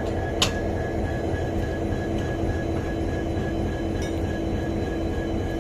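Locomotive running slowly near a coach during coupling: a steady low rumble with a steady hum and a faint high pulsing tone. A brief sharp click about half a second in.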